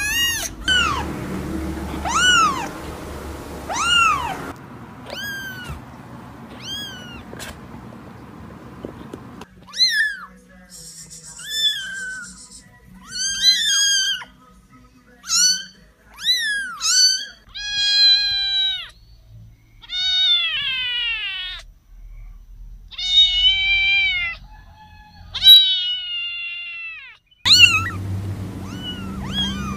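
Young kittens meowing: a long series of high-pitched mews, each rising and then falling in pitch, several kittens calling in turn, some calls drawn out longer.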